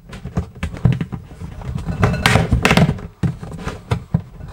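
Hollow plastic knocks, taps and scraping as the hood of a Rotho plastic cat litter box is pushed and handled to snap it shut onto its base, with a louder cluster of knocks and scraping a little after two seconds in.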